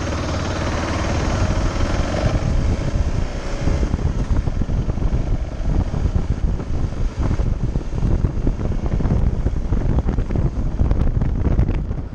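BMW GS motorcycle engine running as the bike rides through traffic and picks up speed. After about two seconds, wind buffeting on the microphone rises and blends with the engine.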